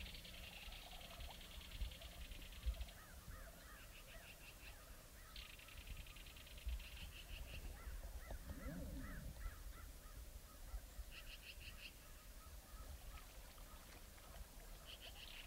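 Faint birdsong: repeated high, rapid trills and many short chirps, with one short low call about nine seconds in.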